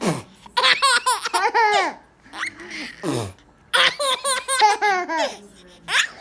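A baby belly-laughing in two long fits of rapid, high-pitched laughter. Each fit follows a toddler's short mouth fart noise that drops in pitch, three of them in all.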